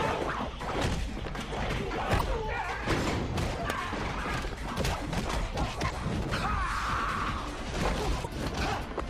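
Fight-scene soundtrack: a rapid run of punch and kick impacts, with crashes and thuds, over music.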